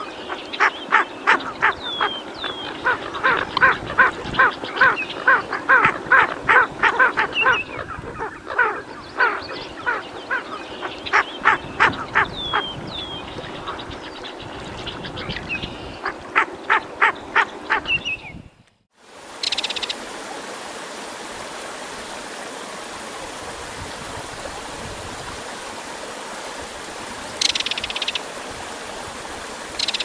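A chorus of short, rapid clucking animal calls from a marsh, repeating a few times a second with a few higher chirps mixed in. It cuts off about 18 seconds in and gives way to a steady rushing noise like running water, with a couple of brief bursts near the end.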